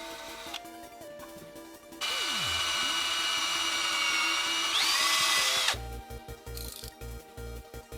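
A small electric power tool's motor runs for nearly four seconds, starting about two seconds in. Its pitch rises shortly before it stops abruptly. Background music plays throughout.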